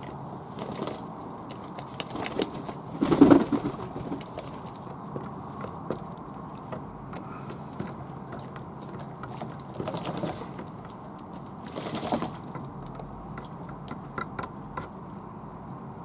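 Fantail doves cooing and splashing as they bathe in a tub of water, with a louder burst about three seconds in and two smaller ones later.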